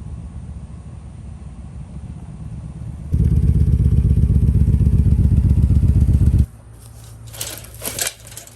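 An engine running with a rapid low pulse, much louder for about three seconds in the middle, then dropping off suddenly; a few short scraping or rustling sounds follow near the end.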